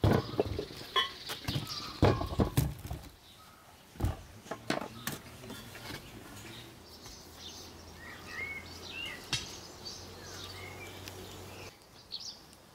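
Zucchini knocking and thumping as they are set into an enamel basin, several loud knocks in the first three seconds. After that it goes quieter, with birds chirping.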